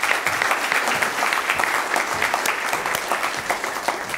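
Audience applauding, many hands clapping in a steady patter.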